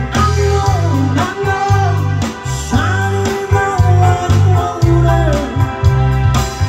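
Live band playing a pop song: a sung vocal melody over electric guitars, a heavy pulsing bass line and a drum kit.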